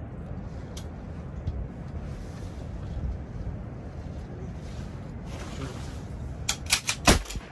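Wind rumbling steadily on the microphone over open water. Near the end comes a quick run of sharp clicks and knocks, about half a dozen within a second.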